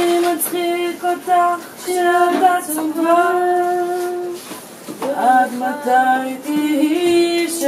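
A woman singing a love song in long, held notes.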